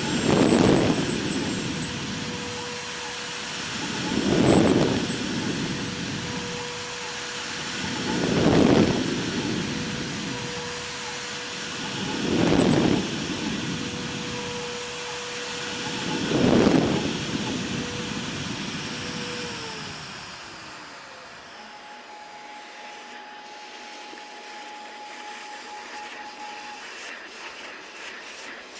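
CNC router spindle running at a steady whine while the bit engraves MDF, with a swell of cutting noise about every four seconds as it passes. A little past halfway the spindle's pitch falls as it spins down, leaving a fainter steady hum and a few clicks near the end.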